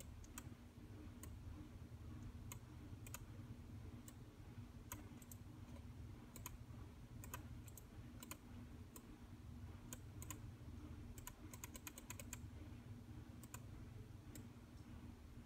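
Faint, irregular clicks of a laptop keyboard and mouse buttons during computer work, with a quick run of clicks about eleven seconds in, over a low steady hum.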